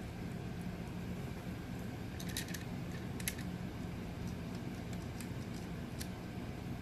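A few sharp, scattered clicks of a screwdriver and wires being worked at an outlet's terminal screws, over a steady low hum.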